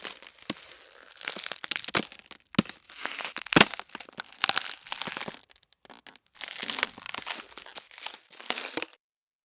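Ice cracking and crackling as it freezes: bursts of dense crackle with several sharp single cracks, the loudest about three and a half seconds in. It stops about nine seconds in.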